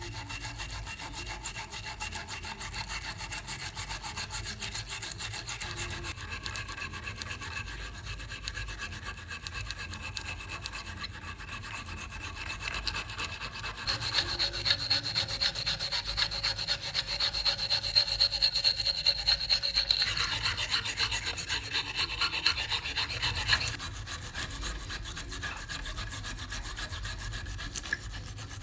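Rapid back-and-forth rubbing strokes of an abrasive being worked by hand over the rusty folding knife's steel. About halfway through, the strokes grow louder and take on a higher, ringing scrape for roughly ten seconds, then settle back.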